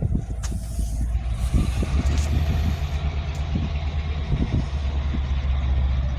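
A GM G22CW diesel-electric locomotive's engine rumbles steadily as the train arrives, growing heavier about two seconds in. A brief hiss of air comes near the start.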